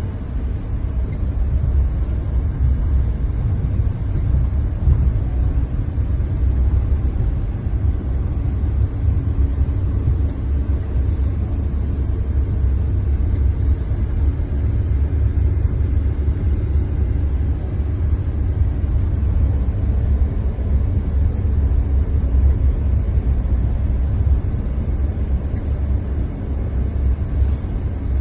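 Car driving along: a steady low rumble of engine and tyre noise.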